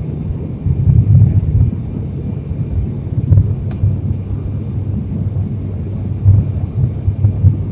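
Jet airliner cabin noise on descent: the steady low rumble of the engines and airflow heard from a window seat, with a low hum and uneven swells in level.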